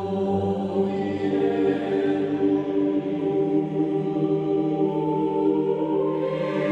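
Background music of slow choral singing, with long held notes.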